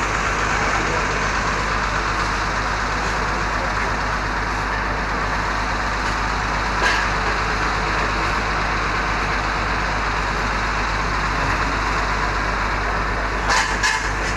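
Diesel engine of a Mercedes-Benz OH1521 intercity bus idling steadily. A sharp click comes about halfway through, and a few short knocks come near the end.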